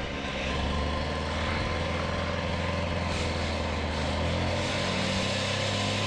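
An engine running steadily; it gets louder about half a second in.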